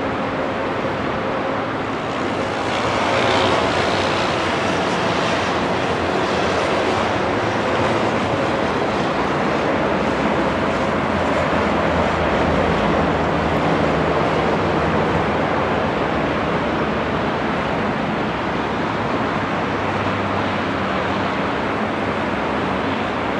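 A small aircraft's engines at takeoff power during its takeoff roll, a steady rushing noise, mixed with road traffic passing close by. The sound swells briefly about three seconds in.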